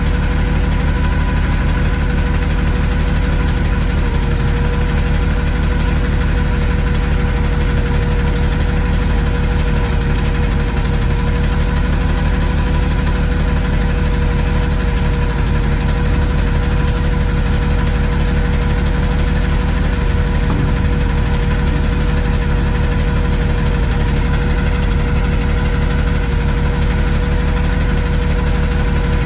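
Peterbilt front-loader garbage truck's engine idling steadily, with a constant whine on top.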